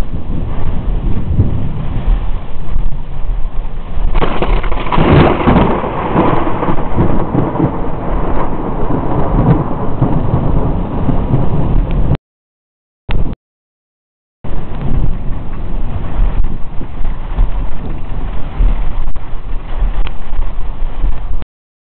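Mountain thunderstorm: heavy rain with thunder rumbling, and a louder peal of thunder about four seconds in that lasts a few seconds. The sound cuts out completely for about two seconds after the middle, and briefly again near the end.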